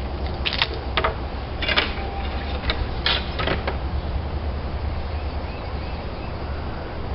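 Sharp taps and knocks of hand roofing work on slate, about seven in the first four seconds, then fewer, over a steady low rumble.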